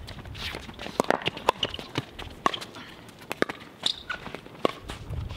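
Pickleball paddles striking a hard plastic pickleball in a quick volley exchange, a sharp pock about every half second, mixed with players' footsteps on the hard court.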